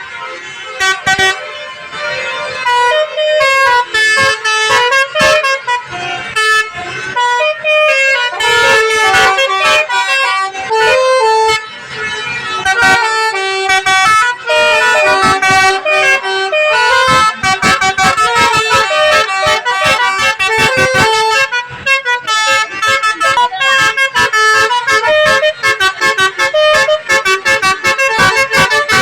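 Basuri 'telolet' bus horn, a multi-trumpet musical air horn, playing a melody as a long run of loud, reedy pitched notes. The notes turn short and quick from about halfway through.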